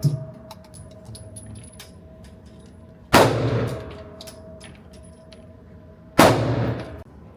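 Two single pistol shots about three seconds apart, each a sharp report followed by a fading echo.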